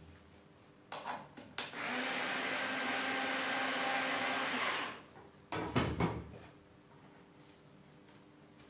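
Homemade disc sander driven by a washing machine motor: a piece of wood is pressed against the spinning disc for about three seconds, giving a loud, even sanding hiss that starts and stops abruptly, over the motor's faint steady hum. A few knocks come just before and after, as the wood is handled.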